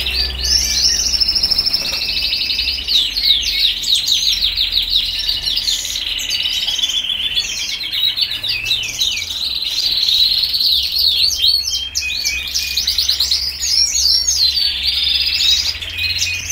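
Frilled canaries singing: a continuous, high song of fast trills and rolls mixed with quick rising and falling whistled notes.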